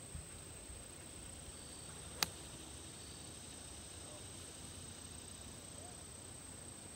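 A single sharp crack of a golf club striking the ball on a tee shot, about two seconds in, over a steady high-pitched drone of insects.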